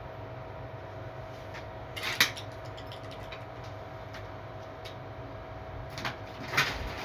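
A few short metallic clanks and rattles, loudest about two seconds in and again near the end, over a steady low hum.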